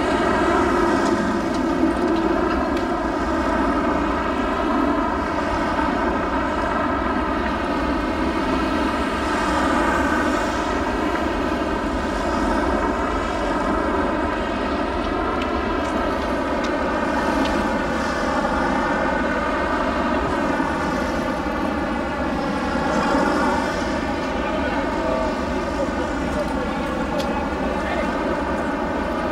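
Steady engine drone with a slowly wavering, phasing tone.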